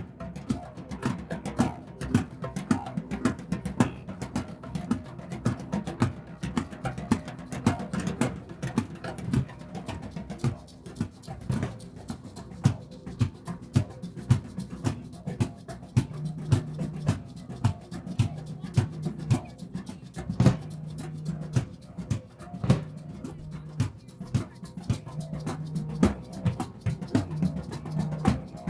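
Drum circle: several drums played together in a fast, busy rhythm of dense strikes. A low held note sounds on and off through the second half.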